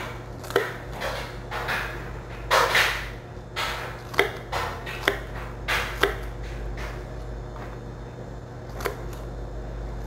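Kitchen knife dicing a yellow onion on a plastic cutting board: irregular sharp taps of the blade on the board mixed with softer slicing strokes, thinning out to a few taps in the last few seconds.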